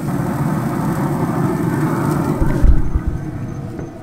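Pompano fillets sizzling on hot grill grates, a dense steady crackle. About three-quarters of the way in, a heavy thud as the Camp Chef grill's lid is shut, after which the sizzle is muffled.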